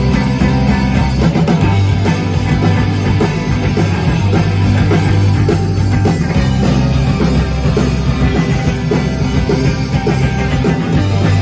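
Live rock band playing loud: electric guitars and bass over a drum kit, heard through the stage amplifiers and PA.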